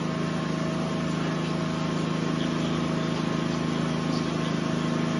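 A steady engine-like drone: a constant low hum with a couple of fainter steady higher tones, unchanging throughout.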